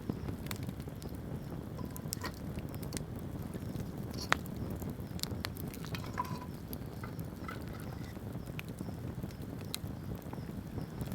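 Wood campfire burning: scattered sharp crackles and pops over a low steady rumble, with one louder pop about four seconds in.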